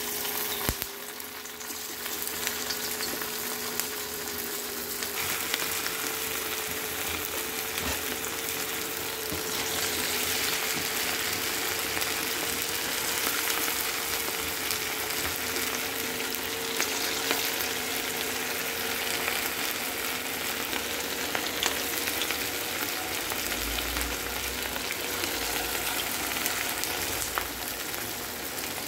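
Batter-coated chicken pakoda pieces deep-frying in hot oil in a steel kadai: a dense, steady sizzle and crackle of bubbling oil. It rises sharply right at the start as the pieces are dropped in.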